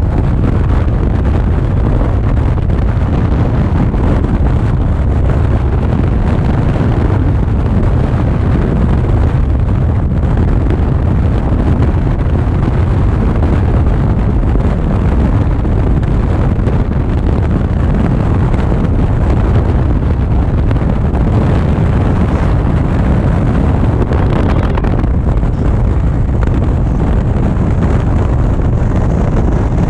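Steady, loud wind buffeting the microphone of a camera on an Indian Chieftain motorcycle at highway speed, mixed with the bike's running and road noise.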